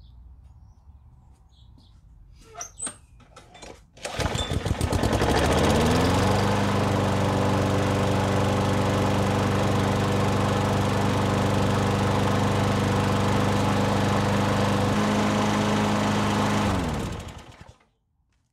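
Craftsman push mower's engine, freshly primed, starting up about four seconds in, climbing to speed over a couple of seconds, then running steadily before winding down and stopping near the end.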